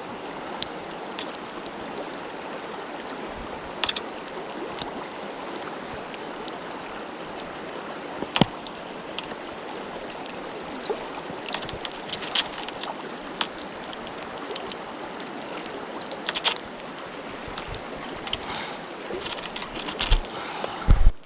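Mountain stream water rushing steadily over rocks, with scattered sharp clicks and knocks through it and a few louder knocks near the end.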